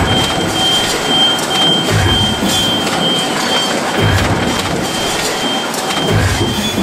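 Industrial metal stamping press cycling, with a low thud about every two seconds over steady factory machine noise and a thin high whine.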